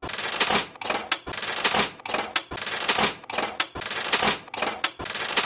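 Rapid, continuous clattering like typewriter keys, in repeated bursts with brief pauses between them.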